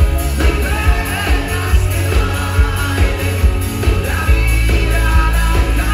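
Rock music with singing over a heavy, steady bass.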